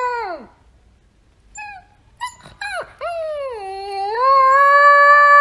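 Husky puppy howling: a howl that slides down and fades out just after the start, a few short yips about two seconds in, then a long howl from about three seconds in that dips in pitch, rises and holds.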